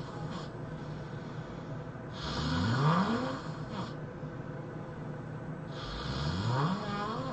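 A person snoring heavily: two long snores about three and a half seconds apart, each rising sharply in pitch, with the end of an earlier snore just at the start.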